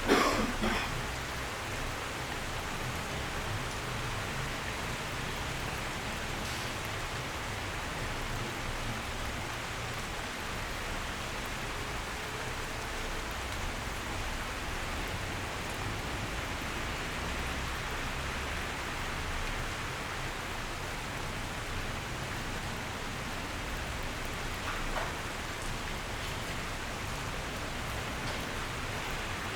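Steady rain pattering on a window, an even hiss of drops that holds at one level throughout. A brief sharper, louder sound comes right at the start, and a faint one about 25 seconds in.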